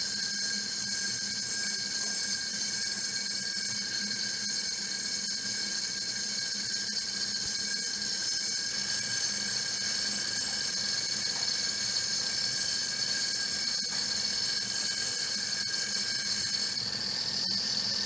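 Electric angle grinder with a cutting disc running and slicing slots into a firebrick: a steady high-pitched whine over a grinding hiss, its pitch rising slightly near the end.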